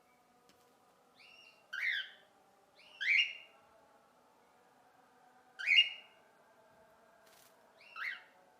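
Cockatiel flock calls: four short, loud whistled calls a second or two apart, each with a fainter note just before it.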